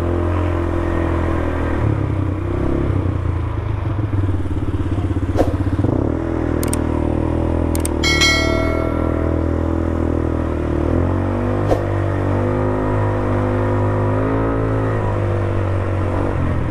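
A 200cc ATV's engine runs under way, its pitch rising and falling with the throttle. A few sharp clicks come about halfway through, then a bright bell-like chime that rings and dies away over a couple of seconds, the sound of a subscribe-button animation.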